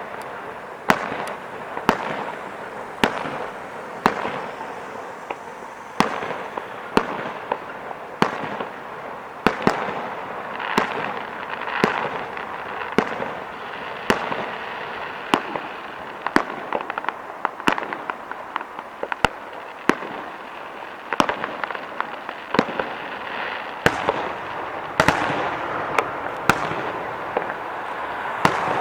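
Fireworks display: sharp bangs of bursting shells about once a second over a continuous noisy wash.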